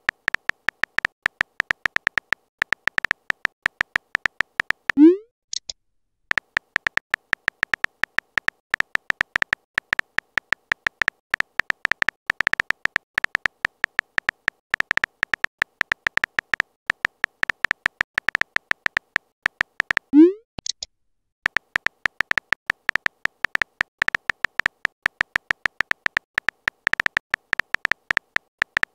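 Chat-app typing sound effect: a rapid run of short high ticks, one per typed character. Twice, about 5 and 20 seconds in, a short rising pop marks a message being sent, and the ticking pauses for about a second before it resumes.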